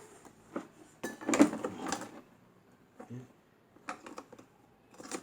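Handling noises from the fan being worked on: a series of clicks and knocks of plastic and metal parts, with a louder clatter about a second in.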